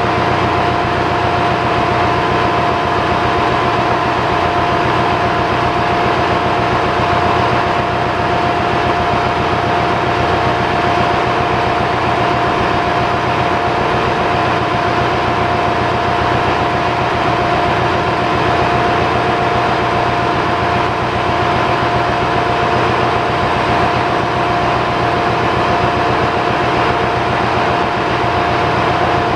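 Loud, steady drone of running diesel engines and machinery in an engine room, with two steady whining tones over it.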